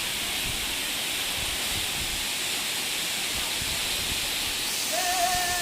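Waterfall rushing steadily, a constant hiss of falling water. Near the end a voice briefly holds a note.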